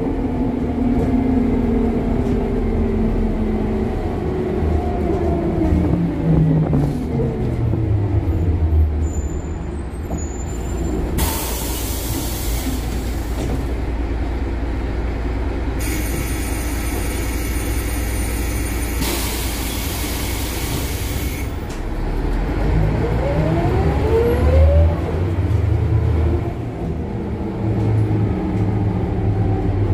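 Inside an articulated Ikarus 260 bus with a ZF automatic gearbox: the diesel engine's note falls as the bus slows to a stop. Two long hisses of compressed air from its pneumatic system come about 11 and 16 seconds in. From about 22 seconds the engine note rises again as the bus pulls away.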